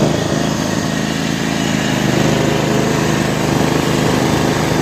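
Riding lawn mower's small engine running at a steady speed, just restarted after stalling.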